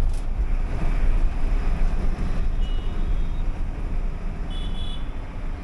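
Uttarakhand Roadways (UTC) bus running along the highway: a steady engine and road rumble. Two short high-pitched beeps come through, one about halfway and one near the end.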